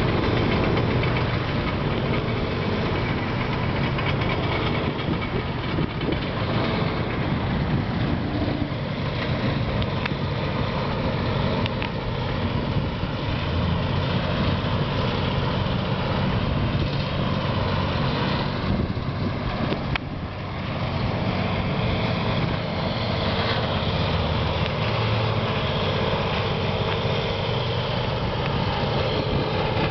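Engine of debris-collection machinery running steadily, with a short dip in level about two-thirds of the way through.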